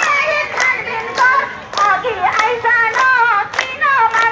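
A crowd clapping together in a steady beat, about three claps every two seconds, in time with a voice singing a song.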